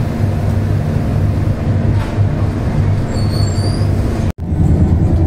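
Steady low hum and rumble inside a moving Vistadome train coach, with a short high-pitched tone about three seconds in. The sound cuts out for an instant near the end, then the same rumble carries on.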